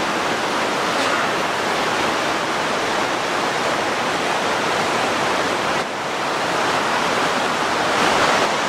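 Steady rushing of the Genesee River's water flowing below, briefly dipping about six seconds in.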